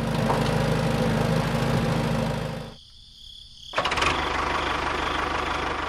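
Small electric motors and plastic gearing of a handmade miniature toy tractor whirring steadily with a low hum, dropping out for about a second about three seconds in and then running again.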